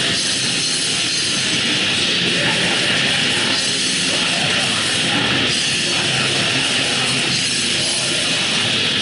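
A live rock band playing loud and steady, with distorted guitars and drums, heard from within the crowd so it comes through as a dense, harsh wall of sound.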